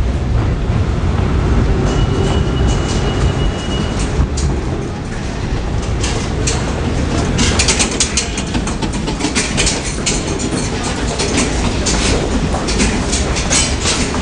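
A subway train running on the elevated tracks: a steady low rumble, with rapid, loud clattering of wheels over rail joints from about six seconds in. A thin high steady whine sounds briefly about two seconds in.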